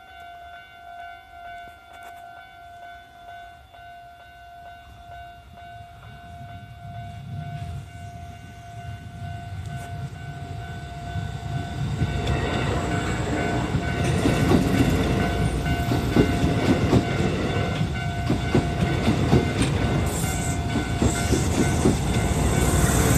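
Japanese level-crossing warning bell ringing in a steady repeating pattern as a Kintetsu 8600 series electric train approaches. The train's rumble grows louder and becomes the loudest sound from about twelve seconds in as it passes the crossing, with wheels clicking over the rail joints.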